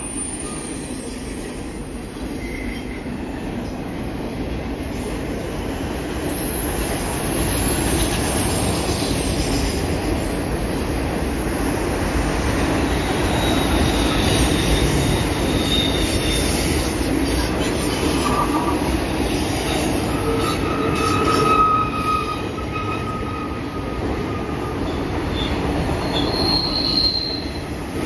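CN freight train's double-stack container cars and autorack cars rolling past on a curved track: a steady rumble of steel wheels on rail, with thin high wheel squeals rising now and then as the wheels grind through the curve.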